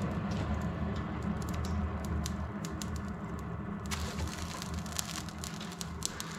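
Burning charcoal in a blacksmith's forge crackling, with many scattered sharp ticks and pops over a steady low hum.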